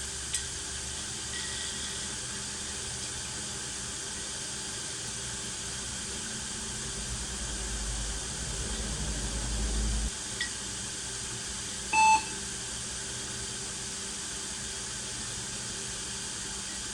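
Steady hiss with a low hum that swells and cuts off abruptly about ten seconds in, then a short electronic beep about two seconds later.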